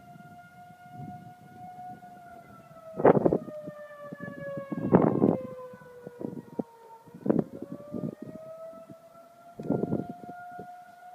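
Outdoor tornado warning siren sounding a steady wail. Its pitch sags slowly around the middle and climbs back. Several brief, loud bursts of noise cut in over it.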